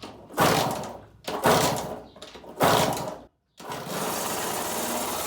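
Kawasaki KX65's small single-cylinder two-stroke engine starting up: three short bursts of firing, each dying away, then after a brief break it runs steadily.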